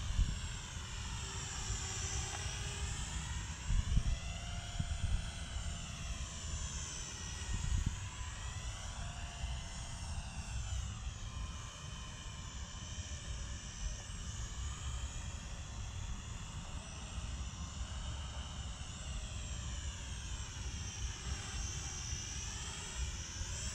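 SNAPTAIN SP500 foldable GPS quadcopter in flight, its propellers giving a whine that rises and falls in pitch as it manoeuvres. A low rumble with a couple of bumps runs underneath.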